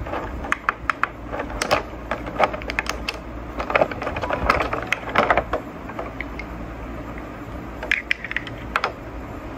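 Clear moulded plastic packaging tray crackling and clicking as a handheld smartphone gimbal is worked loose and lifted out of it, with a busy spell of clicks in the first half and another cluster near the end.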